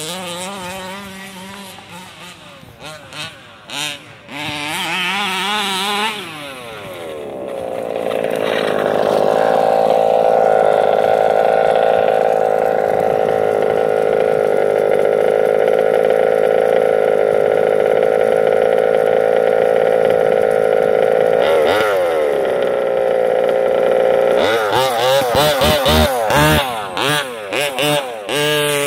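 Two-stroke engine of a gas-powered Rovan RC buggy revving up and down for the first few seconds, then held at a steady high pitch for about a quarter of a minute, and revving hard again in short blips near the end.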